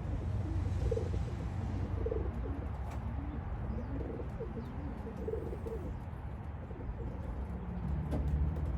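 Racing pigeons cooing, a run of short low calls that thins out after about five seconds, over a steady low rumble.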